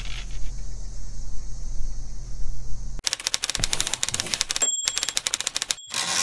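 An electrical hum and buzz sound effect for about three seconds, then a typewriter sound effect: rapid keystrokes clattering, with a thin ringing tone joining partway through and a last quick run of keys near the end.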